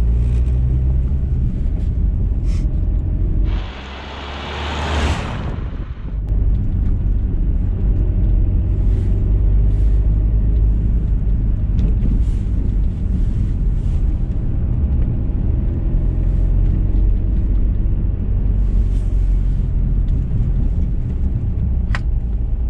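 Car driving along a country road, heard from inside the cabin: a steady low rumble of engine and tyres. About four seconds in, the rumble dips for a couple of seconds under a brief hiss that rises in pitch.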